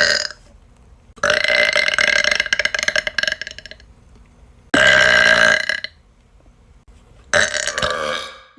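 A young woman burping loudly three times: a long drawn-out burp of about two and a half seconds, then two shorter ones about a second each, with short pauses between.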